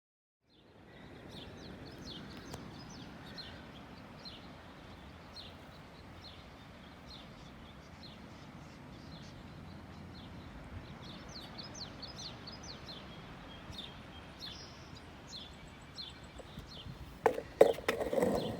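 Small birds chirping, many short high chirps in quick succession, over a steady low background rumble. A few sharp knocks come near the end.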